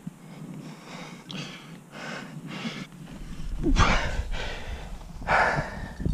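A rock climber breathing hard with effort while climbing: a quick series of sharp breaths, the loudest two about four and five and a half seconds in. A low rumble joins about three seconds in.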